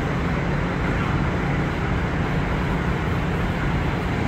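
Steady low mechanical rumble with a broad hiss from dockside machinery, running without change.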